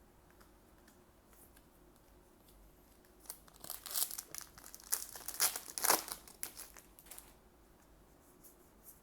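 A foil trading-card booster pack being torn open, its wrapper crinkling and rustling for about four seconds in the middle, loudest near the end of the tearing.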